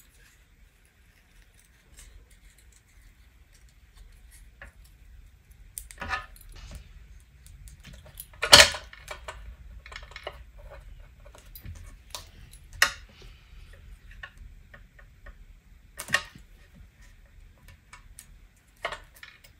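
Scattered light clicks, taps and rustles of paper-craft handling: scissors, small card pieces and a glue stick being picked up and set down on a cutting mat. The sharpest knock comes about halfway through.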